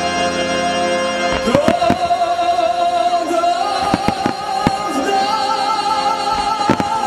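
Fireworks bursting over a loud orchestral-style show soundtrack, with several sharp bangs scattered through. From about a second and a half in, a long wavering note is held above the music.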